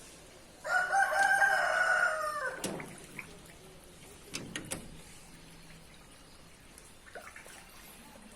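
A rooster crowing once, a single pitched call of about two seconds that drops at its end, followed by a few faint clicks.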